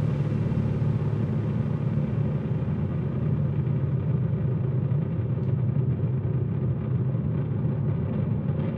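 Low, rumbling bass drone held at a steady level, its high end slowly dulling.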